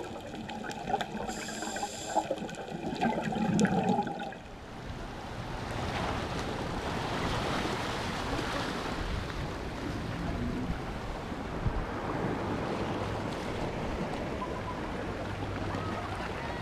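Muffled underwater bubbling and gurgling from scuba breathing, heard through a camera housing, with a few clicks. After about four seconds it changes abruptly to a steady wash of sea and wind at a rocky shoreline.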